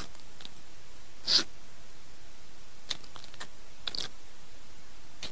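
Eating sounds picked up by a close microphone: a few short wet clicks and smacks from the fingers working rice and fish and from the mouth, the loudest about a second in, over a steady background hiss.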